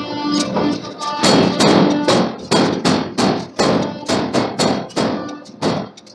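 Forging hammer blows on steel, about two strikes a second in a steady rhythm, starting about a second in, over background music.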